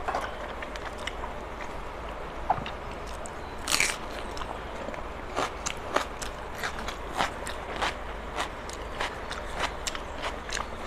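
Close-miked chewing of a mouthful of rice and chicken curry eaten by hand, with a run of short, sharp, wet mouth clicks that come thicker in the second half.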